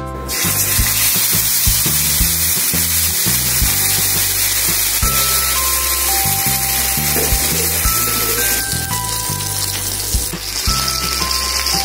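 Marinated chicken leg sizzling in hot oil on a flat tawa, the sizzle starting as the leg is laid in the pan just after the start. Background music plays throughout.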